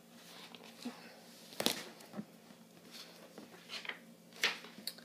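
Handling noise from a book being lowered and set aside: a few sharp knocks and taps among soft paper rustles, the loudest about one and a half seconds in and again near the end.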